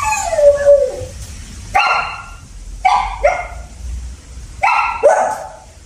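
A dog barking repeatedly up at a cat perched out of reach: a drawn-out falling bark at the start, then sharper barks, singly and in pairs, each dropping in pitch.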